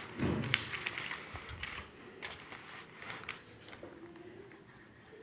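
Faint clicks and scratchy rustles of paper and a pencil being handled on a textbook page, thinning out after about two seconds into quiet room tone.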